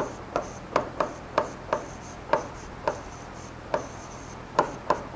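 A pen tapping and sliding on the glass screen of an interactive smart board while a word is written: about a dozen sharp, irregular taps.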